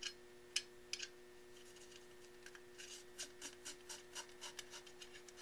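Screws being hand-threaded into a steering wheel display's bracket and post: a few sharp clicks in the first second, then a quick run of light ticks and scrapes, about four a second, for a couple of seconds.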